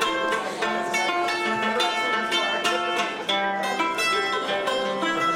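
Mandolin picked in an instrumental passage, a steady stream of short plucked melody notes.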